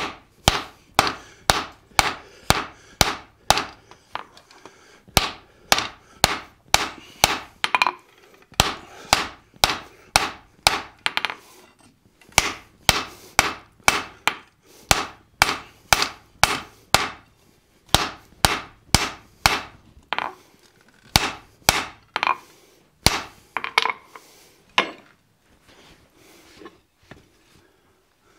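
Hand hammer striking a red-hot 4140 steel cross peen hammer head on the anvil, about two blows a second in steady runs with short pauses. The blows thin out to a few scattered ones near the end.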